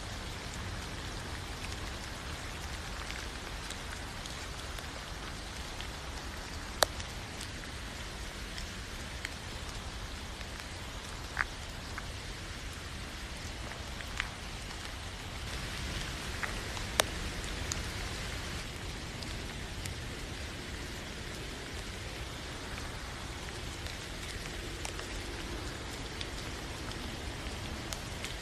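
Steady rain falling, with a few sharp, louder drops landing close by; the loudest comes about a quarter of the way in.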